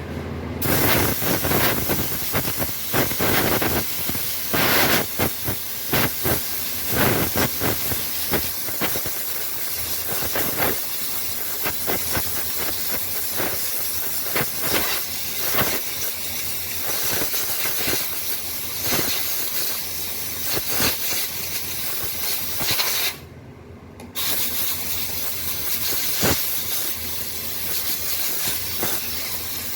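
Compressed-air blow gun hissing loudly in repeated uneven blasts as it blows dust out of a motorcycle air filter element; it stops for about a second near the end, then blows again.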